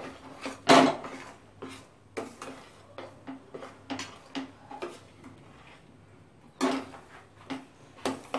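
Metal spatula scraping and knocking against a kadai while stirring thick melted jaggery with nuts, in irregular strokes about two a second, with a short lull a little past the middle.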